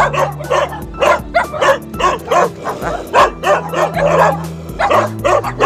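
Several dogs barking and yipping in rapid, overlapping bursts, several barks a second, over background music with held low notes.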